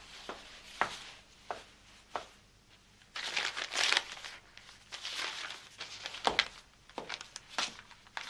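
Brown paper wrapping on a parcel being crinkled and torn open. It comes in several rustling bursts, the loudest about three to four seconds in, after a few light knocks of the parcel being handled.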